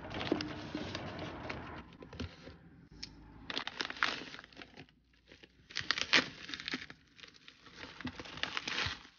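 A plastic poly mailer torn open and a plastic-wrapped manga volume handled, making crinkling and tearing plastic sounds in about four bursts with short pauses between them.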